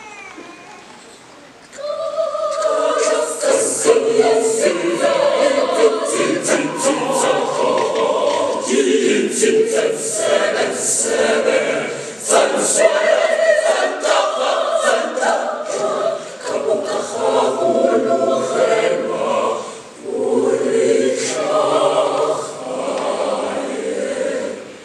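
A mixed school choir of boys and girls singing unaccompanied. The voices come in strongly about two seconds in, with brief breaks between phrases around the middle and near the end.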